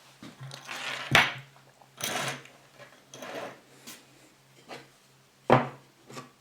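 Small wooden pieces being handled on a hard surface: a few short scraping slides and sharp wood knocks, the loudest about a second in and again near the end.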